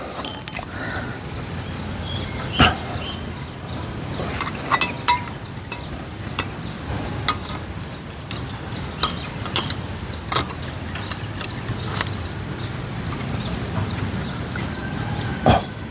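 Scattered clicks and knocks of a metal gas canister being handled and screwed onto a portable parabolic-windshield camping stove. Short high bird chirps repeat in the background.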